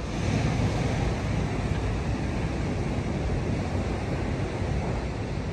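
Steady rushing noise of ocean surf, with wind buffeting the microphone.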